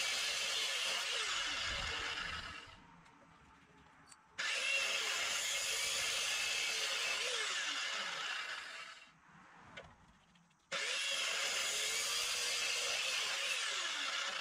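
Drill Master electric cut-off saw running and cutting through 3/4-inch copper pipe, its pitch dipping now and then. It winds down about two and a half seconds in, starts up sharply again just after four seconds, winds down near nine seconds, and starts again near eleven seconds for a third cut.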